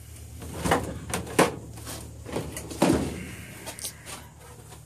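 Knocks and clunks from things being moved about while searching for a small crowbar, with a sharp knock about a second and a half in and a heavier thud about three seconds in.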